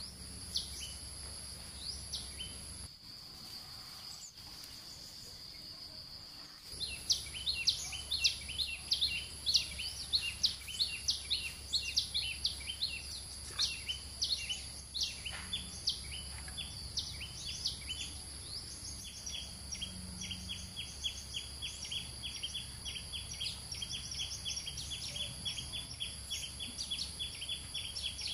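Birds chirping in many short, quick calls over a steady high-pitched insect drone. The chirping starts about a quarter of the way in and settles into a fast, even series near the end.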